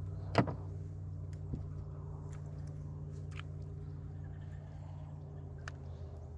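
Steady low motor hum, with one sharp click about half a second in and a few light ticks after it.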